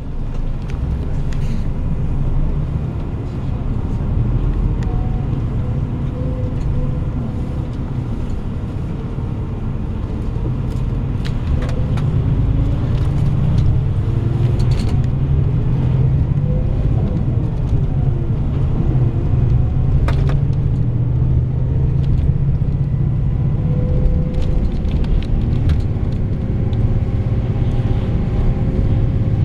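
Bus engine and road noise heard from inside the cabin, the engine note rising and falling as the bus pulls away and goes through its gears, with scattered clicks and rattles.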